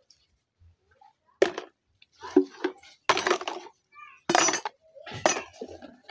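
Washed plastic containers and utensils knocking and clinking as they are set into a plastic basin, several sharp clatters about a second apart.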